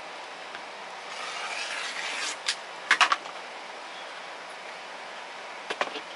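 Rotary cutter rolling along an acrylic quilting ruler, slicing through batting with a rasping hiss for about a second and a half. A cluster of sharp plastic clicks follows about three seconds in as the cutter is set down, and a few more clicks come near the end as the ruler is handled.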